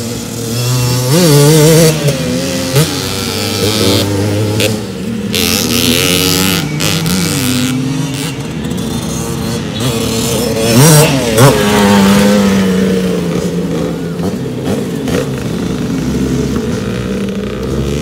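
Kawasaki KMX 125 two-stroke single-cylinder dirt bike engine revving up and down repeatedly as it is ridden, its exhaust silencer packed with fiberglass roving mat. The hardest revs come about two seconds in and again about eleven seconds in.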